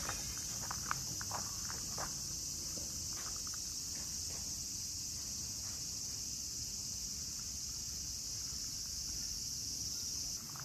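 Steady high-pitched chorus of cicadas, with footsteps crunching on gravel during the first few seconds.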